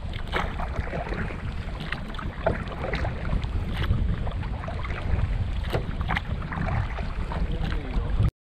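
Wind buffeting the microphone of a camera on the bow of a moving canoe, a steady rumble, with scattered splashes and ticks of water against the hull and the camera. The sound cuts off suddenly near the end.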